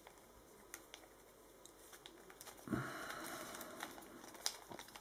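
Faint clicks and scrapes of a Sengso Halpern-Meier Pyraminx Mirror's plastic pieces being turned in the hands, with a louder rustling scrape lasting about a second a little past halfway.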